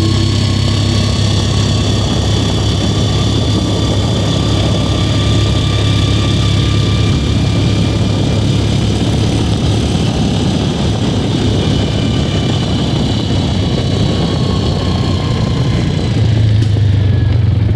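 Engine of a small gas-powered buggy running as it drives along a paved street, giving a steady low hum with a faint whine that drifts slowly up and down in pitch. The engine grows a little louder near the end.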